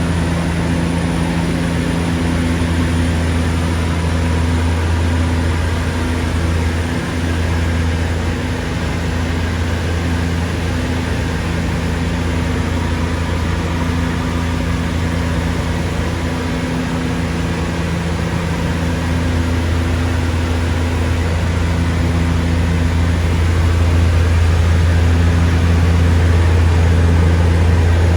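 Seaplane propeller engines droning steadily in flight, a little louder near the end.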